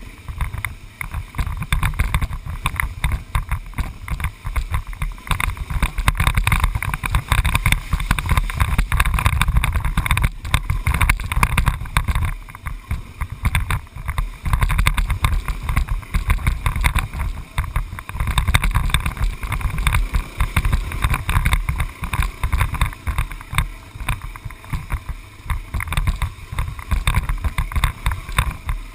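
Vehicle driving a rough dirt road: a loud, uneven low rumble that flickers constantly, with wind noise on the microphone.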